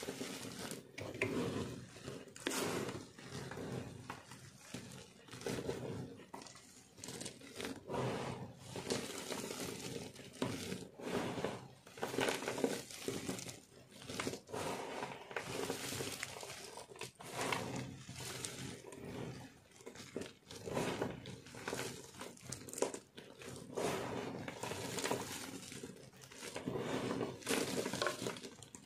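Handfuls of dry, crumbled soap pieces being scooped, squeezed and dropped back onto a pile: crunchy crumbling and rustling, coming in a new burst every second or two.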